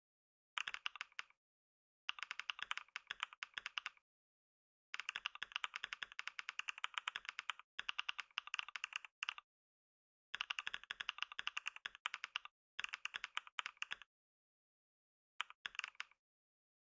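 Fast typing on a computer keyboard: rapid runs of key clicks, many a second, broken by short pauses of a second or less.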